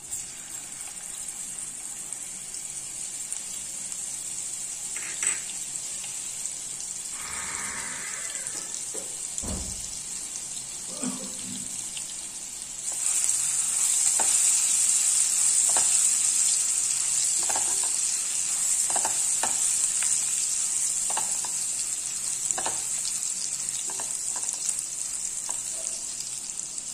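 Crushed garlic sizzling in hot oil in a nonstick pan, a steady hiss that grows louder about halfway through. A silicone spatula stirring it gives scattered light scrapes and taps against the pan.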